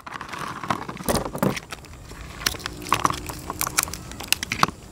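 Raw crabs being pulled apart by hand: an irregular scatter of small sharp clicks and cracks of shell, with wet handling noises.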